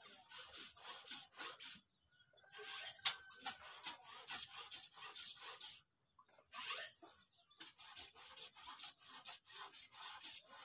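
Rapid rhythmic scraping strokes, about four or five a second, in three runs with short pauses between them.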